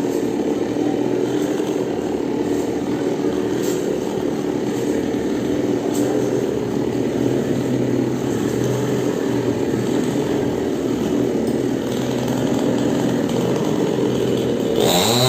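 Chainsaw engine running steadily at a constant speed. Near the end, a different wavering, pitched sound comes in over it.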